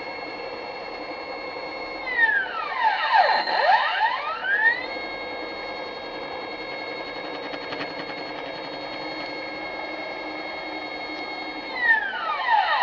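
Stepper motors of a homemade CNC machine whining at a steady pitch as the axes move. About two seconds in the pitch slides down and climbs back up, louder as the motors slow to a stop and speed up again, and near the end it starts sliding down once more.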